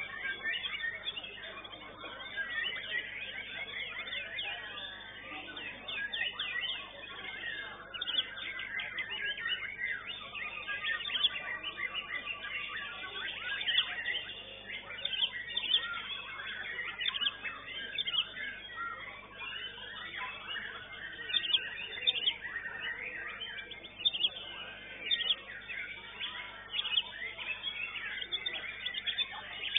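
White-rumped shama (murai batu) singing competition song: a continuous, varied stream of sharp chirps, whistles and quick trills, with other caged shamas singing alongside.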